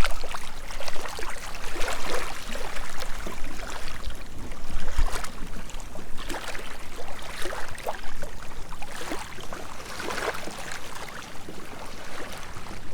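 Ocean waves washing and splashing on the shore in irregular surges, with no music.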